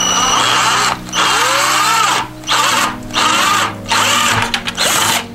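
Cordless drill with a spade bit boring a hole through the wall of a plastic five-gallon bucket, the trigger run in several bursts with short stops between.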